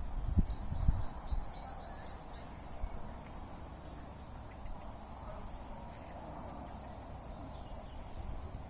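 Quiet garden ambience: a bird sings a quick run of about nine evenly spaced high notes in the first couple of seconds, over low wind rumble on the microphone.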